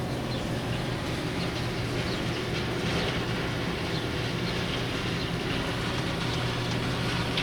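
A steady low mechanical drone of running machinery: an even hum with faint, scattered rattles over it.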